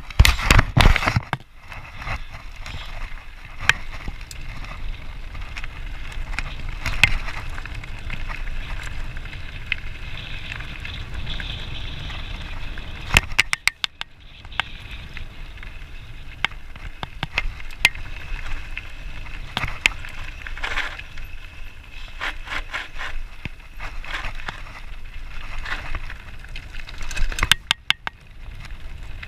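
Mountain bike rolling fast downhill on a gravel track: tyres crunching over loose gravel under a steady rumble of wind and road noise, with the bike's frame and parts rattling in many short clicks and knocks over bumps.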